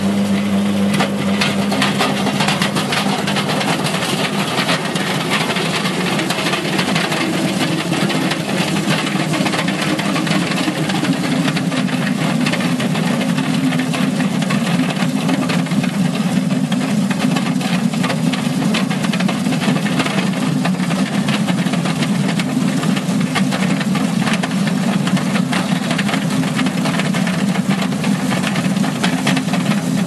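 TP-10 potato peeling and washing machine running: a steady motor hum, with potatoes knocking and tumbling inside the spinning drum from about a second in as they are poured in, and water spraying into the drum.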